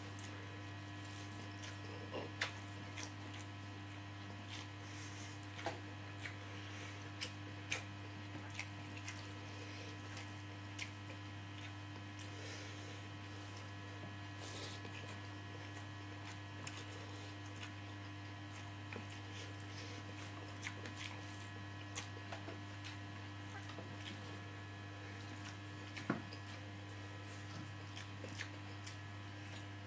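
Eating by hand: scattered short clicks and smacks of chewing and of fingers working rice on a plate, at irregular moments, over a steady low electrical hum.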